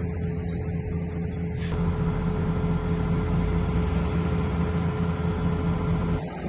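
Diesel engine of heavy construction machinery running steadily, with one brief sharp sound about two seconds in; the low engine sound drops away shortly before the end.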